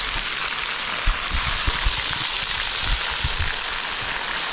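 Small mountain waterfall splashing onto rock, a steady hiss of falling water, with a few low thumps over it.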